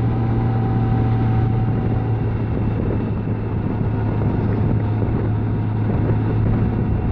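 Honda Gold Wing motorcycle riding at a steady cruising speed: a constant engine hum under a broad rush of wind noise.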